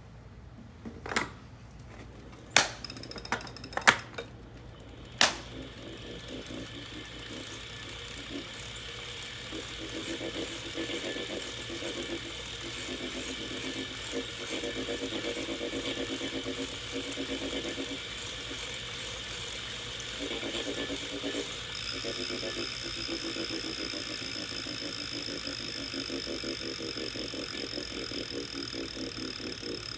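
A Wahoo Kickr Core direct-drive smart trainer being pedalled: a few sharp clicks, then a steady whir that builds up, with a rhythmic pulsing noise, and a high-pitched whine joins about three-quarters of the way through. The noise is a fault that developed within three months of new use.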